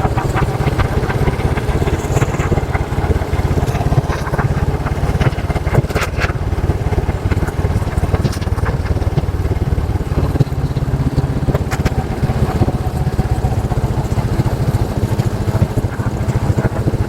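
Motorcycle engine running steadily as it rides along a road, with a low rumble and rapid even pulsing.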